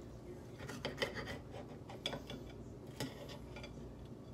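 Kitchen knife sawing through a thawed flounder fillet, with a rasping scrape and a few sharp knocks of the blade against the plate about a second apart.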